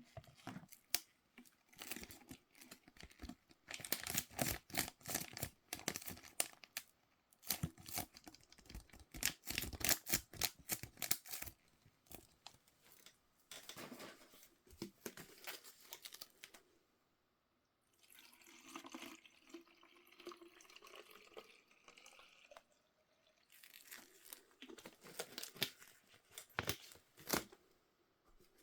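Toy packaging being torn and crinkled by hand: dense runs of rustling and crackling, quieter for a few seconds past the middle, then busy again near the end.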